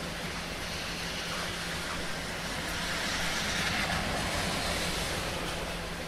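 Heavy rain falling: a steady, even hiss that swells louder about three to four seconds in, then eases back, over a faint steady low hum.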